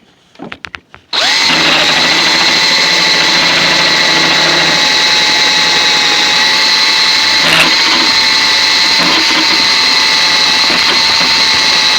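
Electric drill boring a dowel hole into a clamped oak chair leg. It starts about a second in after a few light clicks and runs at a steady speed with a high motor whine, with one brief knock about two-thirds of the way through.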